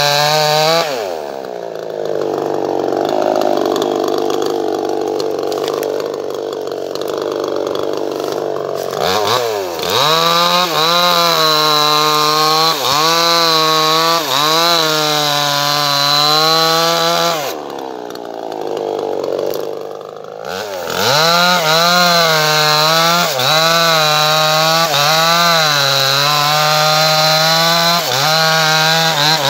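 Chainsaw engine running loud, its pitch rising and falling in waves about once a second. Twice, about a second in and again about two-thirds through, the pitch drops and the sound turns rough and dull for a few seconds before the revving resumes.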